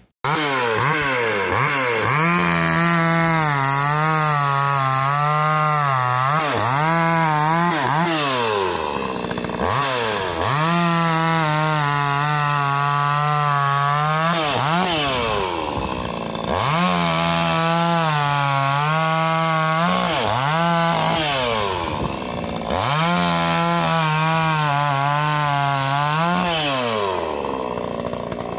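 Gasoline two-stroke chainsaw revving up and cutting through a black locust log four times, dropping back between cuts; the pitch wavers under load during each cut. The chain has just been hand-sharpened with a file guide and is being test-cut.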